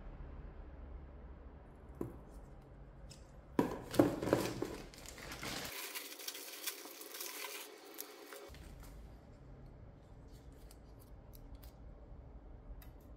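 Clear plastic packaging crinkling and rustling as a small bag is handled, loudest about four seconds in, followed by a few light clicks and taps.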